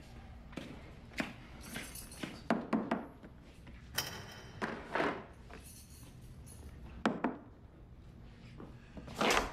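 A string of short, irregular knocks and rustles, about eight in all, the loudest one near the end, over a faint steady low hum.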